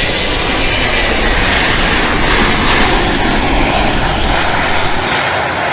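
Loud, steady aircraft engine noise from a fixed-wing airplane, a dense rushing sound with no clear pitch.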